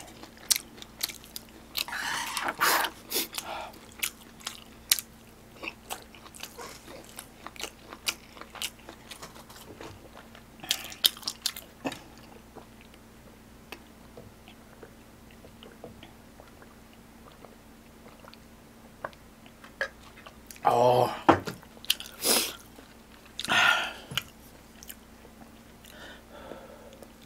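Close-miked eating: chewing and crunching food, with light clicks of chopsticks and a spoon against the dishes. A few louder, longer mouth sounds come in a cluster about two-thirds of the way through.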